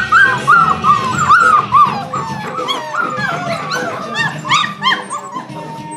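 Puppies whining and yipping in a quick run of short, high-pitched arching cries, about three a second, loudest in the first couple of seconds and thinning out after that.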